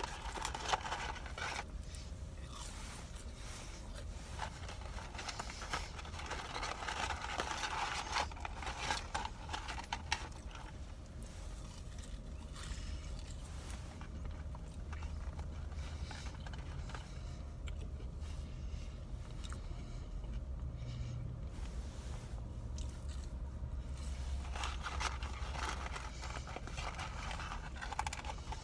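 Eating French fries: chewing, with the scrape and rustle of the paper fry carton in several bursts, over a steady low rumble inside a vehicle cabin.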